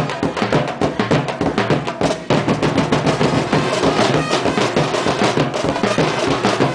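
Live drum and percussion ensemble playing a continuous, dense rhythm of strikes as dance accompaniment.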